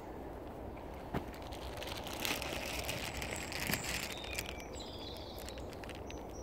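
Footsteps and rustling on a woodland path, with a sharp click about a second in and a louder rustle in the middle. A few short bird chirps sound from about halfway, over a steady low background noise.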